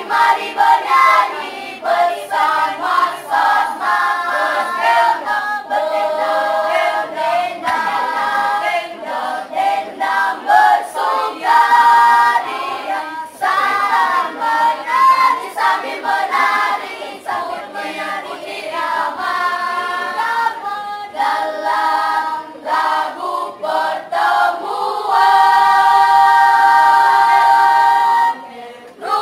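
Children's choir singing masamper, the Sangihe tradition of unaccompanied group song, in several voices together. Near the end the choir holds one long chord before breaking off.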